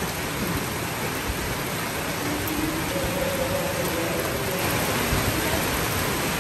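Heavy rain falling steadily, an even hiss that grows a little louder near the end.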